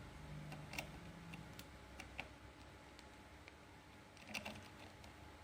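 Faint, scattered small plastic clicks and taps from the nebulizer's medicine cup being handled and closed with its cap.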